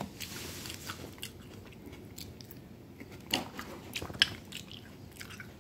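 Someone chewing and biting into crunchy food, with scattered short crunches and clicks; the sharpest come a little over three seconds in and twice around four seconds in.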